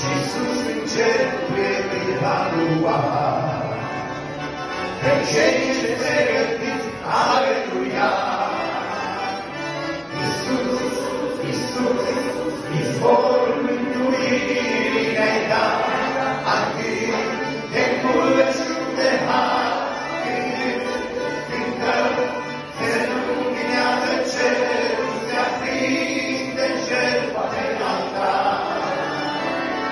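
Male vocal trio singing a hymn in harmony to accordion accompaniment.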